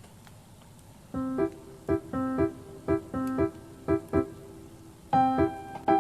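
Background piano music that comes in about a second in with a light, repeating pattern of short notes, growing fuller near the end.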